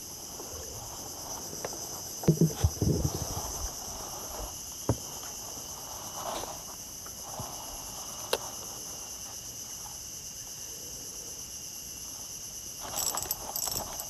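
Steady, high-pitched chorus of insects. Over it come a few loud knocks about two to three seconds in, sharp single clicks near the middle, and a short burst of clattering near the end.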